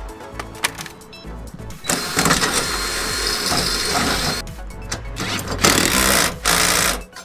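Cordless drill boring into the steel trailer frame, with a high-pitched whining grind lasting about two seconds, starting about two seconds in, and a shorter spell near the end, over background music.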